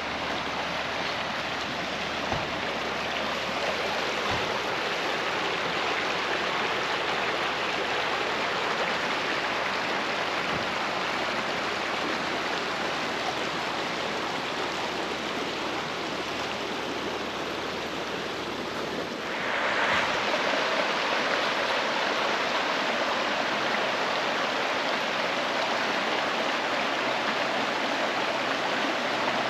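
Creek water running steadily, growing louder and brighter about two-thirds of the way in.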